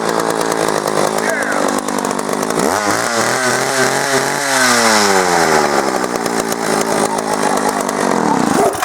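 A 1970s Homelite 350 two-stroke chainsaw engine running, just brought back to life after a blocked fuel line. It is revved up sharply about three seconds in, held high for a couple of seconds, then allowed to fall back toward idle.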